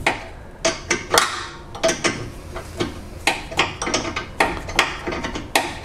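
A 16 mm wrench being worked on a thread-locked front sway bar bracket bolt: a string of irregular metal clicks and clinks, about two or three a second.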